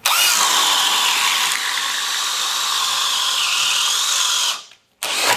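DeWalt 20V XR hammer drill driver on high speed in drill mode, boring through a wooden board with a spade bit: a steady motor whine over the chatter of the bit cutting wood. The whine sags briefly and recovers a little past three seconds in, and the drill stops abruptly after about four and a half seconds, having gone through fast.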